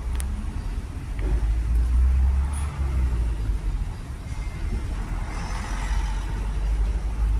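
Deep, steady rumble of a motor vehicle running close by, with faint street noise above it.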